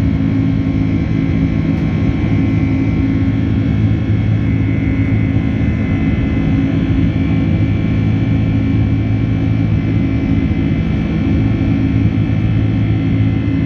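Steady engine and airflow noise of a Boeing 767-300 heard inside the cabin during departure: an even low hum with a faint high whine over it.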